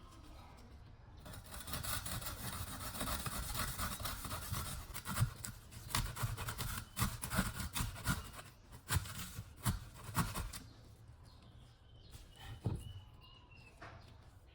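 Abrasive rubbing or scraping for about nine seconds, broken by several sharp knocks in its second half, then a few faint high squeaks.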